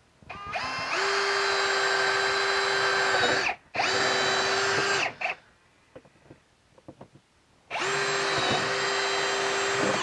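Ryobi cordless drill running in three bursts as it bores holes at the back of a toilet seat: a steady motor whine that spins up in pitch at the start of the first, longest run, a short second run, a pause with a few faint clicks, then a third run near the end.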